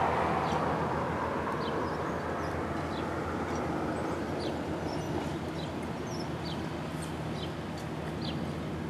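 A flock of seagulls calling, many short high falling cries one after another, over the steady low drone of a tuna boat's engine. A broad rushing noise fades away over the first few seconds.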